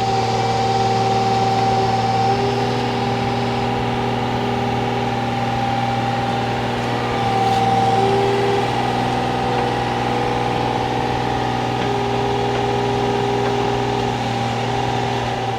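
Komatsu PC35 mini-excavator's diesel engine running steadily. Higher whining tones over it shift in pitch a couple of times.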